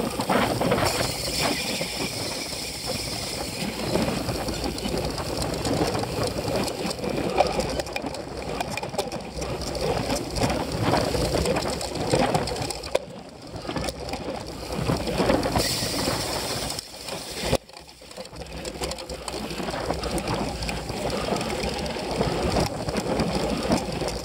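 Onboard sound of a cyclocross bike ridden fast over a bumpy grass course: wind rushing over the microphone, with tyres on turf and the bike's chain and frame rattling, and a sharp knock about three-quarters of the way through.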